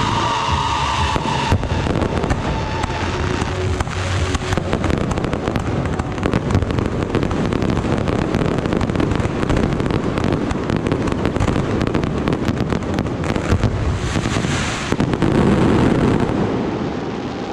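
Fireworks display: aerial shells bursting in a dense, rapid barrage of bangs and crackling that runs together. It is at its loudest a little before the end.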